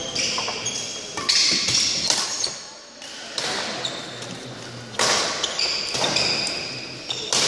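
Badminton rally on a wooden sports-hall floor: several sharp racket hits and thuds, with short high-pitched squeaks of court shoes on the boards, in a large hall.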